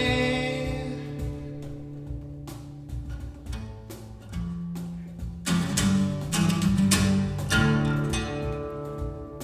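Acoustic guitar playing an instrumental passage without singing, plucked notes ringing over sustained low notes, swelling in loudness again about five and a half seconds in.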